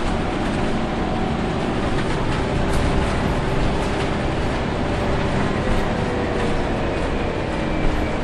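Cabin noise inside a Scania CN94UB Omnicity city bus under way: a steady mix of engine, drivetrain and road noise, with a few brief knocks and rattles from the interior fittings.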